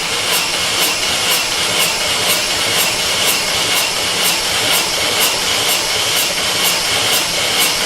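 Vauxhall Corsa VXR 1.6 turbo four-cylinder engine cranking over on its starter motor, steady with a regular beat about twice a second, for a compression test on cylinder 3.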